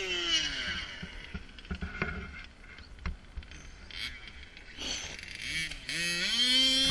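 A radio-controlled truck's motor running at speed, its pitch falling away in the first second, then climbing again as it is throttled up near the end and held high, with light clicks and patter of the tyres on snow in between.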